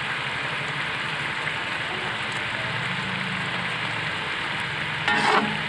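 Salted shark stir-fry with green chili bubbling and sizzling in a little water in a wok: a steady hiss over a low hum. About five seconds in, a metal spatula stirs and scrapes through the pan, briefly louder.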